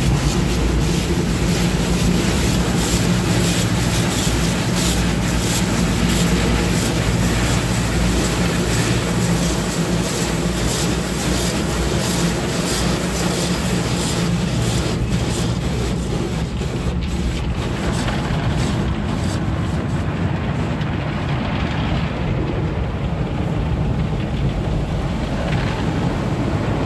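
Automatic car wash heard from inside the car: water spraying onto the windshield and body over a steady low hum of the wash machinery. The hissing spray thins out about two-thirds of the way through, leaving mostly the hum.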